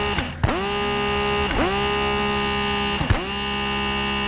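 A steady buzzing electronic tone that dips sharply in pitch and swings back up three times, about every one and a half seconds.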